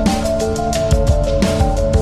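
Background music: electronic track with a steady drum beat and a repeating melody.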